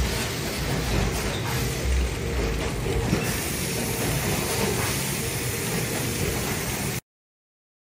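Steady machinery noise with a low rumble from a coffee-bag packaging line and its conveyor running. It cuts off abruptly about seven seconds in, leaving silence.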